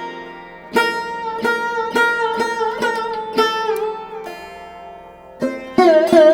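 Background music: a plucked string instrument, sitar-like, playing a slow melody of single notes with bending pitches, with a lull of a couple of seconds before the plucking picks up again near the end.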